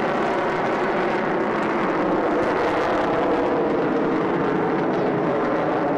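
Aircraft engine noise, loud and steady without a break.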